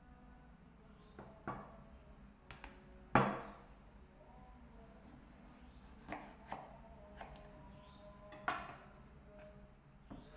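A knife cutting a lime on a plastic cutting board: a handful of separate knocks as the lime is set down and the blade meets the board, the loudest about three seconds in and another sharp one near the end.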